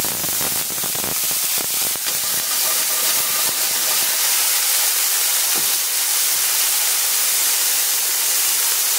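Marsala wine boiling off in a hot frying pan of sliced fresh shiitake over high heat, a steady loud steamy hiss and sizzle, with a few knocks in the first couple of seconds.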